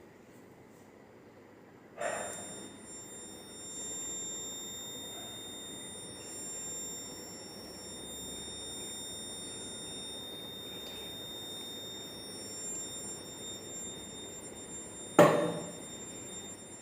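Buzzer of a hole-indicator alarm sounding a steady high tone, set off when water leaking in through a hole completes its circuit. It starts with a knock about two seconds in, and a loud knock comes near the end.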